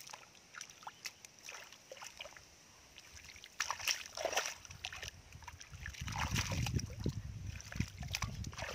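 Hands digging into and scooping wet mud, giving irregular squelches and small splashes, with a louder burst about four seconds in. A low rumble comes in about six seconds in.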